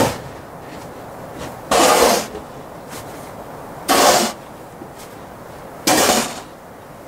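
Snow shovel scraped across a wooden porch deck, pushing snow in three short strokes about two seconds apart.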